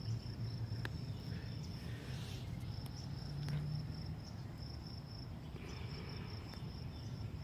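A cricket trilling steadily at one high pitch, with a short break about two and a half seconds in.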